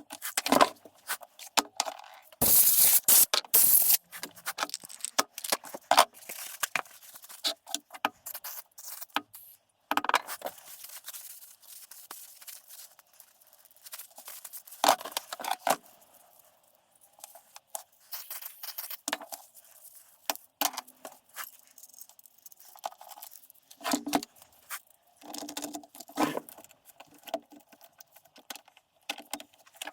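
Irregular clicks, knocks and scrapes of a Poulan Pro chainsaw being cleaned and handled by hand, with a loud run of scraping about three seconds in.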